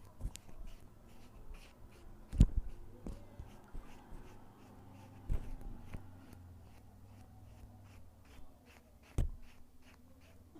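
A few scattered knocks or thumps over a faint low hum, the loudest about two and a half seconds in and others a few seconds apart.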